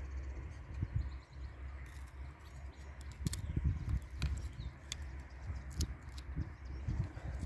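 A small knife blade cutting and scraping a notch into a thin dry wooden stick, giving a few sharp clicks about halfway through, over a steady low rumble.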